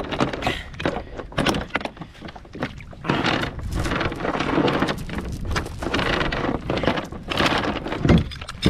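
Anchor chain hauled hand over hand up the side of a kayak, clinking and rattling against the hull in a run of short knocks, with a heavier knock about eight seconds in.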